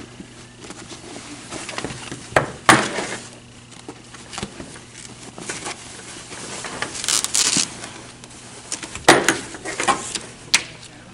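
Car seat fabric upholstery rustling and sliding as the harness straps are pulled through it, with a few sharp clicks of the metal strap buckles about two seconds in and again near the end.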